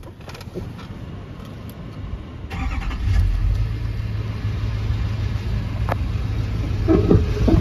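2008 GMC 3500 HD pickup's engine starting about two and a half seconds in, then idling steadily with a low rumble.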